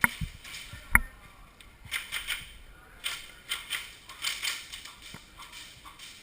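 Airsoft guns firing: two loud, sharp shots about a second apart, then a run of quicker, softer clicks and rattles.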